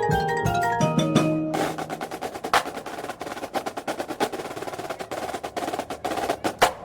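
Drum corps percussion: the pit's mallet keyboards play a few short pitched notes, then about one and a half seconds in the drumline takes over with a fast, dense run of drum strokes, with a few louder accented hits.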